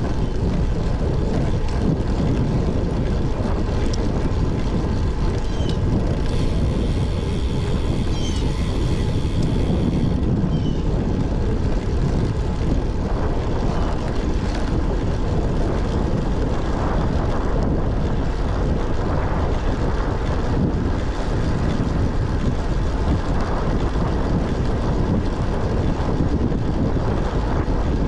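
Wind rushing over a GoPro's microphone on a moving road bike: a steady low rumble.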